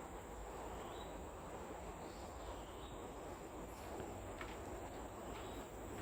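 Outdoor ambience: a steady background hum with a constant high-pitched insect drone, typical of cicadas or crickets, and a few faint ticks in the second half.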